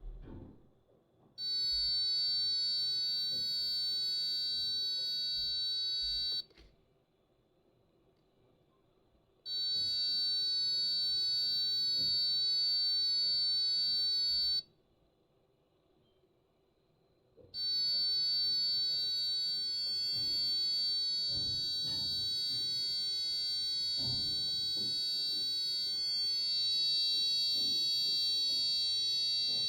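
Electronic buzzer of an Arduino-controlled doorbell sounding a high, buzzy, steady tone in three long beeps of about five seconds each, with pauses of about three seconds between them; the third beep keeps going. Faint handling knocks and rustle underneath.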